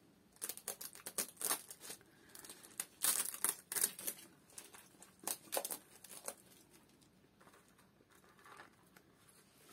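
Thin clear plastic cups crinkling and crackling as gloved hands handle a potted cutting and pull off its plastic cover cup. The crackles come in quick clusters over the first six seconds or so, then die down to a few faint ones.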